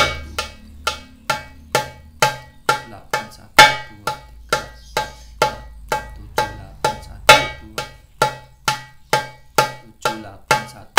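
Darbuka struck near the rim with the ring finger of the left hand in a steady beat of about two strokes a second. The strokes come in groups of eight, and the first of each eight is accented louder.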